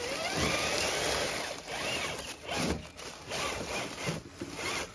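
RC rock crawler's electric motor and gears whining, the pitch gliding up and down as the throttle changes, over a rasping, scraping noise.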